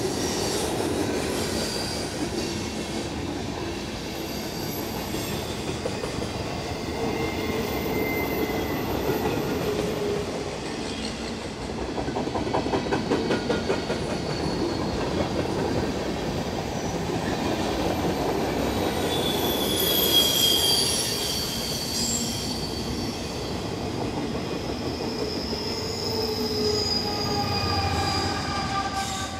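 Norfolk Southern freight cars rolling past close by: a steady rumble of wheels on rail, with clicking over the rail joints and high squealing from the wheels. Near the end a diesel locomotive at the rear of the train passes, adding a low engine rumble.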